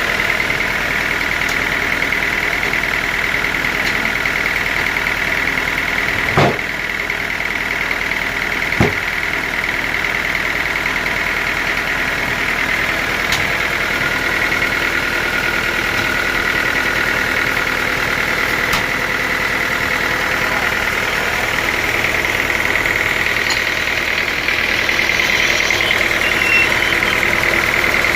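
Sawmill saw machinery running steadily with a continuous high whine. Two sharp knocks come a few seconds apart, around a third of the way in.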